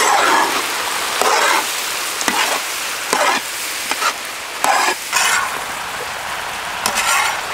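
Pre-boiled turkey meat sizzling in sesame oil in a large wok, with a steady hiss. A flat metal spatula scrapes and turns the meat about once a second in uneven strokes.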